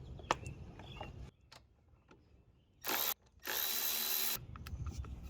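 A power tool running in two short bursts: a brief one about three seconds in, then a longer one lasting about a second, with a few light handling clicks before them.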